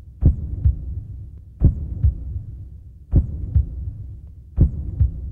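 Heartbeat sound effect: paired low thumps in a lub-dub rhythm over a low hum, four beats about a second and a half apart.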